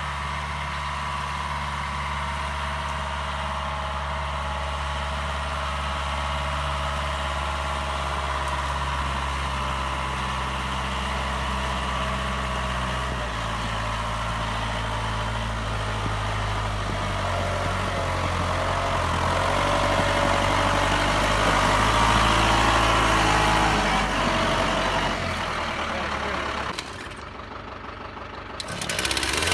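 New Holland 2120 compact tractor's diesel engine running steadily, its engine speed shifting a couple of times, louder for a few seconds past the middle, then dropping off suddenly near the end.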